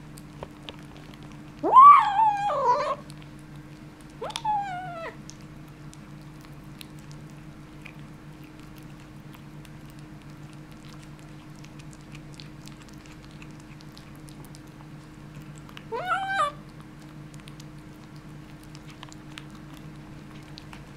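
Kitten making three short, wavering yowls while eating a meat bone. The loudest comes about two seconds in, a shorter falling one follows, and a brief third call comes much later.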